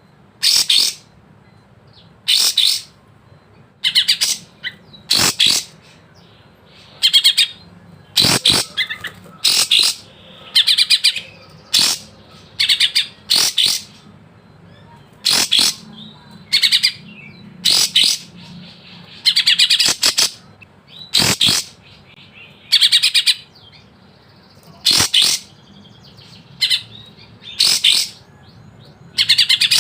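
Kapas tembak songbird singing a string of short, sharp, rapid-fire phrases, one every second or two with brief pauses between.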